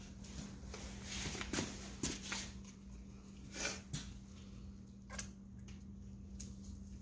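Homemade spin art machine's motor running with a steady low hum. Several brief rustles and knocks are heard over it, the loudest about one and a half seconds and about three and a half to four seconds in.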